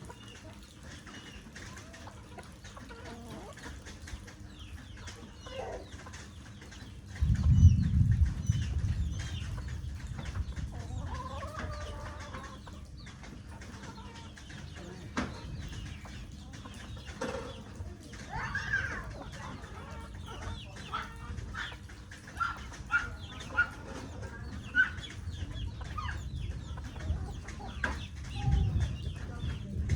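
Chickens clucking on and off over a steady patter of rain. A low rumble swells about a quarter of the way in and briefly drowns everything, then comes back more weakly near the end.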